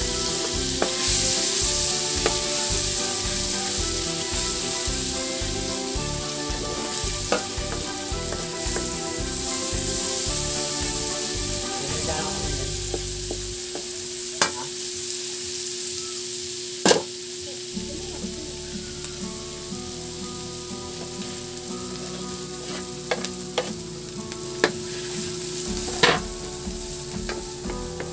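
Chopped ginger and onion sizzling in hot oil in a wok, with a steady hiss, stirred with a wooden spatula that knocks sharply against the pan a few times.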